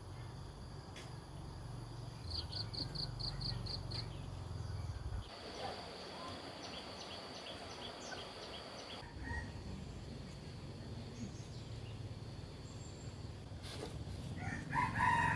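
Outdoor rural ambience with a low steady rumble and birds, including a quick run of about seven high chirps about two seconds in; the background changes abruptly twice. A rooster starts to crow near the end.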